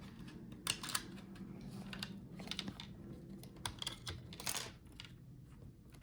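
Irregular light clicks and taps of a small screwdriver and tiny screws being handled on a laptop's motherboard and chassis during disassembly.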